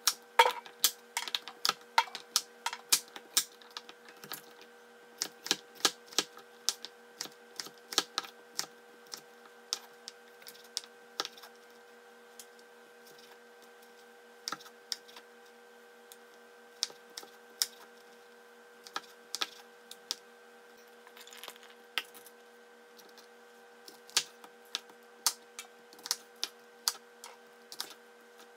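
Chef's knife chopping on a bamboo cutting board, cutting carrots into julienne strips: irregular sharp knocks, often in quick runs of several strokes, with short pauses between runs. Near the end the knife halves Brussels sprouts.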